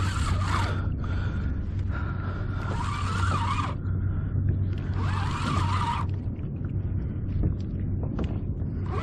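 Fishing reel's drag screaming as a hooked fish pulls line off in runs. There are three stretches of wavering whine: one dies away in the first second, and the next two start about two and five seconds in.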